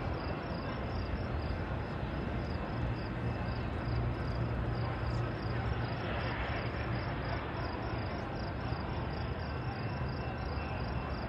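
Crickets chirping in an even, repeating pulse, a few chirps a second, over a low steady hum.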